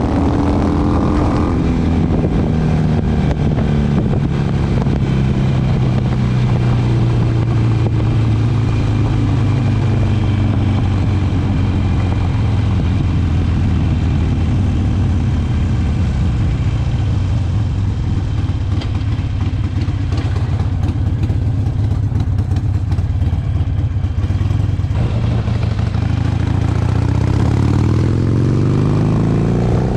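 Harley-Davidson V-twin motorcycle engine running on the move. Its pitch falls over the first couple of seconds as it slows, holds low and steady for most of the stretch, then climbs near the end as the bike accelerates.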